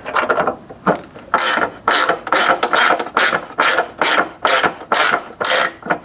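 Hand socket ratchet clicking in short strokes, about three a second, as it drives a screw that cuts its own thread into an unthreaded hole in a plastic headlight lens.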